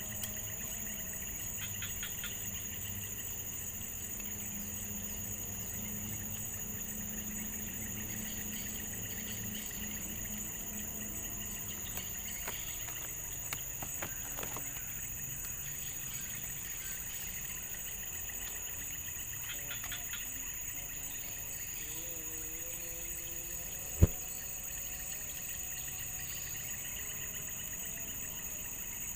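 Steady high-pitched chorus of insects, continuous throughout, with a single sharp knock about four-fifths of the way in.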